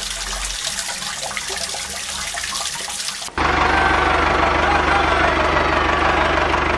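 Water trickling and bubbling for about three seconds. Then a sudden cut to the louder, steady whir of the miniature toy tractor's small electric gear motor running.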